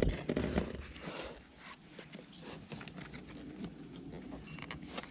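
Cardboard box flaps and packaging being opened and handled, with irregular rustling, scraping and small clicks.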